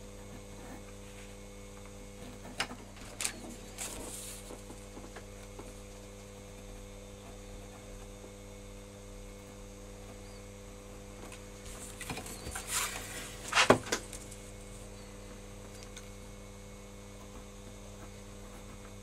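Steady electrical mains hum, with scattered soft knocks, scrapes and rustles as a plastic set square, pencil and paper strip are moved and laid down on drawing paper. A cluster of louder knocks and rustles comes about two-thirds of the way through.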